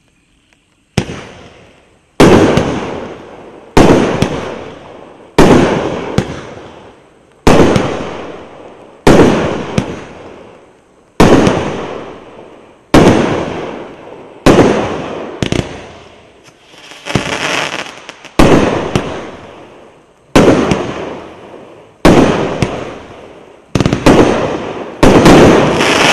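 A 21-shot consumer fireworks cake with mixed 0.8-inch and 1.2-inch tubes firing. It sends up a steady series of sharp shot bursts about every one and a half to two seconds, each fading out in a ringing tail, with two coming close together near the end.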